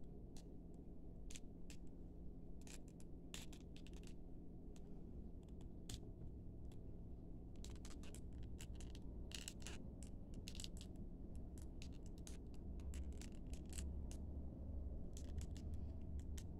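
Scattered faint clicks and light scrapes of a plastic robot action figure being handled, its joints posed and its parts moved, over a low steady hum.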